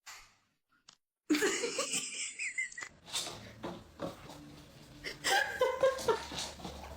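A person laughing, starting after about a second of near silence.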